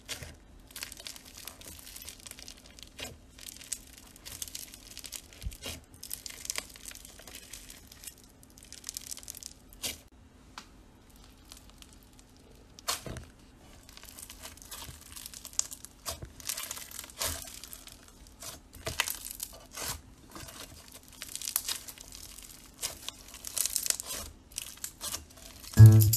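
Pink floam slime packed with small foam beads being poked, squeezed and pressed by hand, giving irregular crunchy crackles and little pops.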